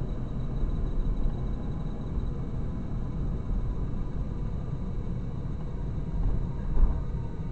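Steady low rumble of a car's engine and tyres heard from inside the cabin while driving, with a brief low thump near the end.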